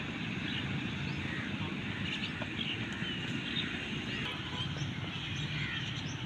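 Open-air ambience: a steady low rumble with birds chirping in short bursts, and a faint tap about two and a half seconds in.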